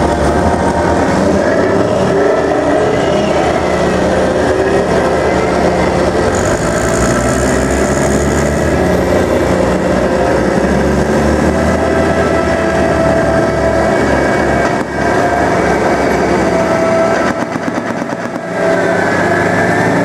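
Tracked armoured vehicles, a Type 89 infantry fighting vehicle and then tanks, driving past with their diesel engines running and tracks rolling. The sound is loud and steady throughout.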